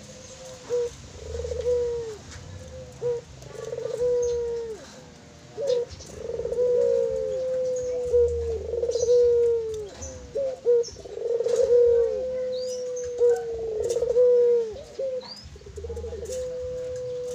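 Puter pelung dove (a domesticated Barbary dove variety) cooing over and over: long, drawn-out coos, each held and then dropping in pitch at its end, with some coos overlapping.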